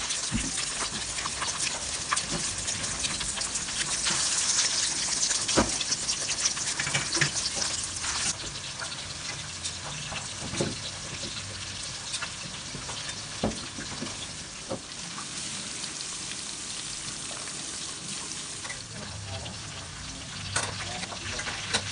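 Pork ribs frying in hot oil in a wok: a steady crackling sizzle, louder for the first eight seconds or so, then settling lower. A few sharp knocks of the metal tongs against the pan come through as the pieces are turned.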